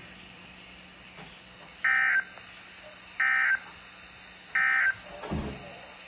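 Three short bursts of warbling digital data tones from a Midland weather radio's speaker, each about a third of a second long and about a second apart: the SAME end-of-message code that closes an Emergency Alert System broadcast on NOAA Weather Radio. A brief low noise follows near the end.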